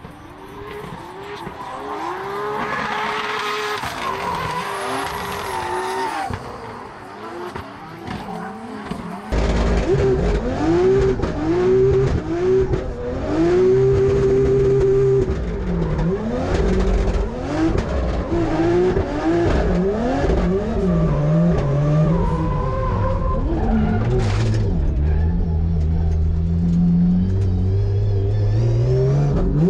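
Nissan Skyline drift car's engine revving up and dropping again and again with tyre squeal as it drifts. It is heard from trackside at first, then, from about nine seconds in, louder from inside the cabin. The exhaust pops have not yet been tuned and the throttle feels unresponsive.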